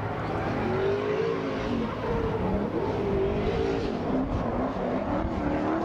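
Drift cars' engines revving, the pitch rising and falling over and over over a steady low rumble.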